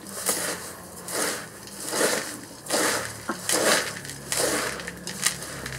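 Metal scoop stirring and scraping gritty potting mix of bark compost and small akadama clay granules in a ceramic bowl. The mix is being blended in repeated crunching strokes, about one every half to one second.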